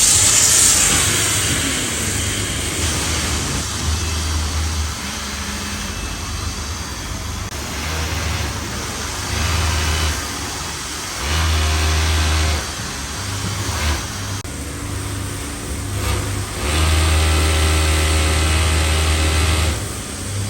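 Factory machine motors starting and stopping in short runs of one to three seconds, each run a steady hum, over a constant noisy background.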